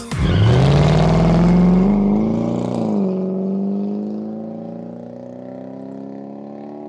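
A car engine accelerating hard. Its note climbs fast, swells and drops at a gear change about three seconds in, then keeps rising slowly while growing fainter as the car pulls away.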